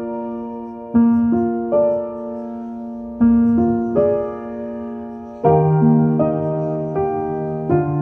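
Background music: slow, gentle piano chords, each struck and left to ring, with a lower bass note joining about five and a half seconds in.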